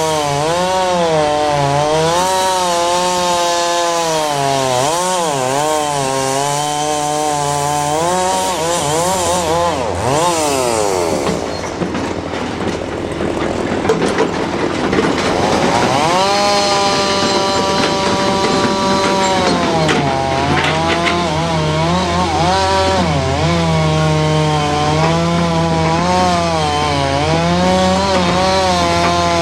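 Caterpillar D7 bulldozer's diesel engine working under load while pulling logs, its pitch rising and falling as the revs change. The pitch sinks and turns rough about ten seconds in, then holds high and steady from about sixteen seconds.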